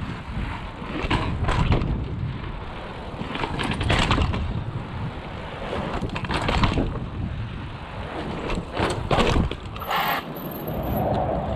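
Mountain bike rolling over stone pavers and curbs, clattering and rattling in a series of jolts over the bumps, with wind rumbling on the microphone.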